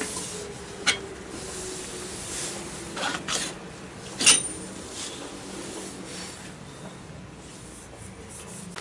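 Metal clicks and scraping from the front axle and hub of a Yamaha BW'S 125 scooter being worked on by hand. There are a few sharp clinks; the loudest comes about four seconds in and rings briefly.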